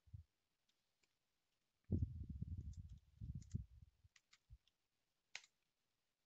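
Computer keyboard keys clicking as a short command is typed: a few separate keystrokes with pauses between them. About two seconds in, a low muffled rumble lasts about two seconds and is the loudest sound.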